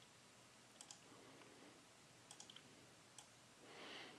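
Near silence with a few faint computer mouse clicks: two just under a second in, a quick run of four a little past halfway, and one more later. A soft puff of noise comes near the end.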